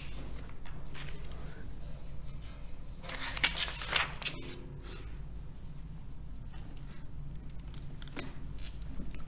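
Sheets of paper rustling as they are handled and lifted at a lectern, loudest about three to four seconds in, over a steady low hum.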